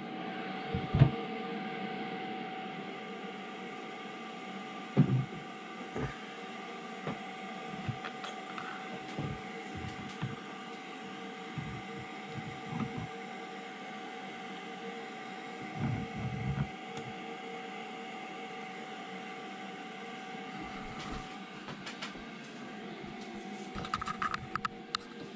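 Shadow 5.5S resin 3D printer running with a steady whine as it raises its build plate and the finished prints out of the resin vat, with a few short knocks along the way.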